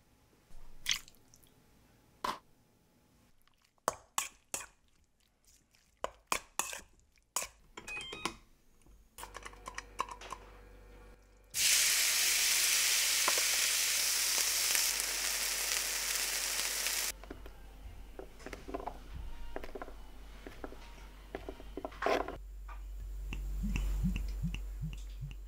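Diced raw chicken hitting a hot non-stick frying pan: a loud sizzle starts suddenly about halfway through, holds for about five seconds, then settles to a quieter sizzle. Before it come scattered sharp clicks and taps of seasoning being worked into the chicken in a steel bowl, and near the end cooking oil glugs as it is poured from a bottle into a steel saucepan.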